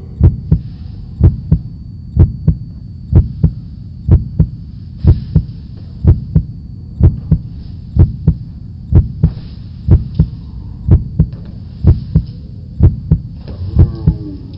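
Heartbeat sound effect: pairs of low lub-dub thumps, steady at about one beat a second, over a faint hiss.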